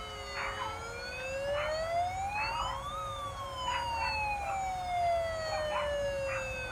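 Toy bubble fire truck's electronic siren wailing: one slow sweep that rises for about three seconds and then falls, over a steady tone.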